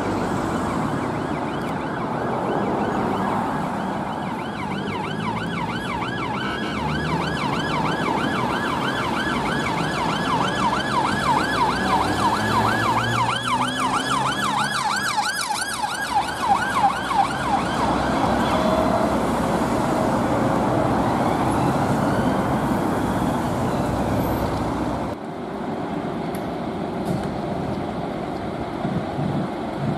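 UK police car siren sounding in heavy traffic, with fast repeated rising-and-falling sweeps through the middle, over the noise of engines and tyres. It fades into traffic noise, and near the end gives way to quieter street noise.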